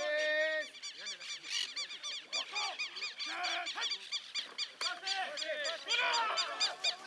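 Birds calling: a rapid, continuous run of short, high, repeated calls. A brief held, pitched sound comes at the very start.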